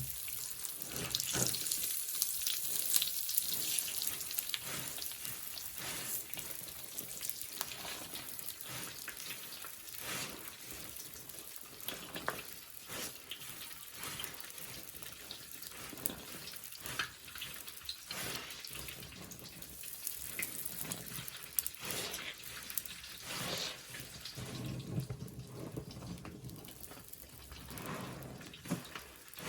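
Soapy sponge soaked in Pine-Sol being squeezed: irregular wet squelches and liquid dripping and splashing, with a fine crackle of foam. It is busiest in the first few seconds and sparser later.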